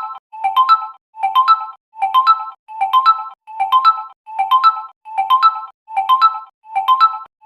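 Realme phone ringtone: a short, bright figure of a few rising notes, repeated in a loop about every 0.8 seconds with a brief silence between repeats.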